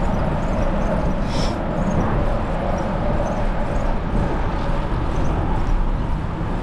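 Steady wind rush on the microphone from riding a bicycle, mixed with road and traffic noise, with a brief high sound about one and a half seconds in.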